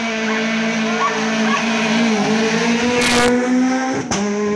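Rally car engine at high revs as the car passes close by, its note held steady. There is a short burst of noise about three seconds in and a sharp crack about a second later.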